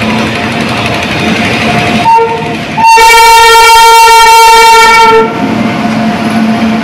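Air horn of a WAP-7 electric locomotive arriving at the platform: a short toot about two seconds in, then one long loud blast of about two and a half seconds, over the steady rumble of the locomotive running past.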